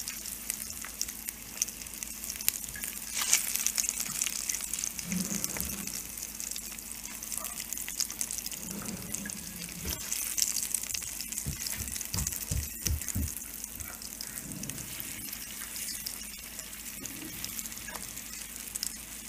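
Halved boiled eggs sizzling in a little hot oil in a nonstick pan, a steady crackling hiss that flares up in spells as the pieces are turned over with a spatula. A few soft knocks come about two-thirds of the way through.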